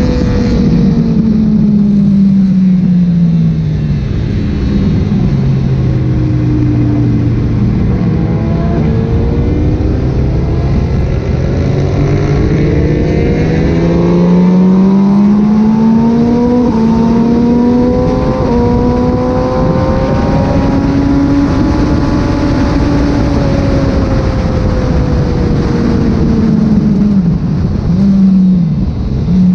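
Kawasaki ZX-6R 636's inline-four engine running on track, its freshly rebuilt engine being run in gently. The note falls over the first few seconds, then rises and falls slowly, with a brief sharp dip near the end.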